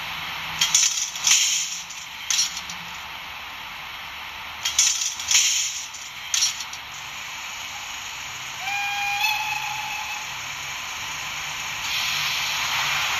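Sound decoder of a Minitrix BR103 N-scale model electric locomotive playing its sound functions through the model's small speaker: a series of short, loud compressed-air hisses in the first half, then one horn blast of about a second and a half, over a steady background hiss.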